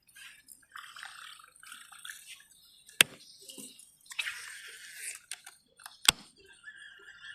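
Splashing, gurgling water with two sharp clicks about three seconds apart.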